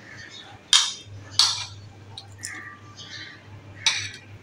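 A metal spoon clinking and scraping against a plate of macaroni: three sharp clinks, about a second in, a second and a half in and near the end, with lighter scrapes between.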